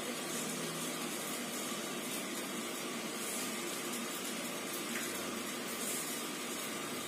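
Steady, even rushing of water, like an aquarium pump or aerator running.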